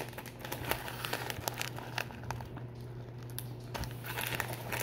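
Plastic snack wrapper crinkling as it is handled and opened: an irregular run of crackles.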